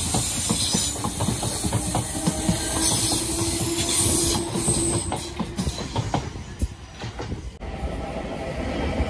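Class 455 electric multiple unit running past and away, its wheels clattering over the track with a steady motor tone under the knocks, fading out. About three-quarters through, the sound cuts abruptly to a second class 455 with a steady hum.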